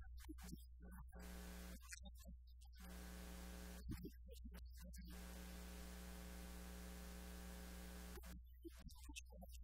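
Faint steady electrical mains hum with hiss. It drops out into near silence four times, for about a second each, at the start, around two seconds in, around four seconds in and near the end.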